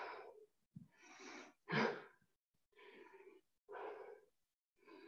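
A woman breathing hard, out of breath after a high-intensity bodyweight workout: a run of heavy breaths about one a second, the loudest about two seconds in.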